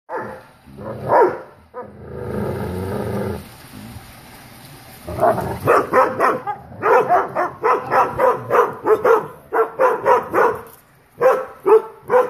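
Airedale terriers barking: a few barks and a rougher, drawn-out sound in the first few seconds, then rapid, loud barking at about two to three barks a second from about five seconds in, pausing briefly near the end before starting again.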